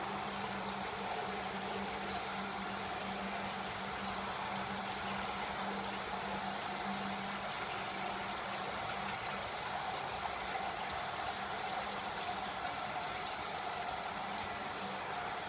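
Water spilling over the pool edge into the slotted overflow gutter, a steady trickling rush, with the filter freshly cleaned. A low steady hum runs under it for the first half or so, then stops.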